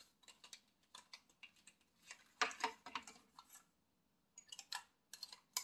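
Faint small plastic clicks and taps from handling a FIFINE K037 wireless mic pack while fitting its AA battery, with a denser rattle of clicks about halfway through and a sharp click at the end.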